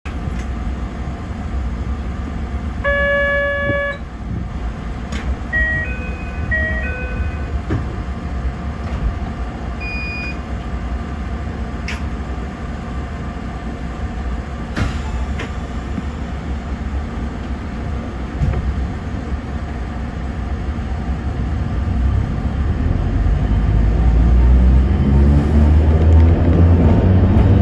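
Narrow-gauge electric train heard from its cab, standing with a steady low hum. About three seconds in a buzzer tone sounds for about a second, then a short run of electronic chime notes and a few clicks. From about 22 s a low motor whine rises in pitch and grows louder as the train starts to pull away.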